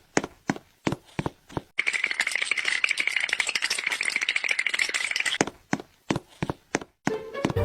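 Sharp separate clicks, about three a second, that speed up into a dense, fast rattle for about four seconds, then slow back to single clicks.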